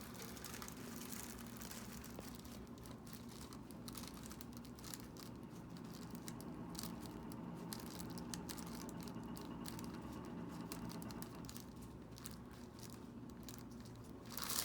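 Soft rustling and crinkling with many small scattered ticks, over a steady low room hum: hands and body moving against the treatment table during a hands-on neck examination.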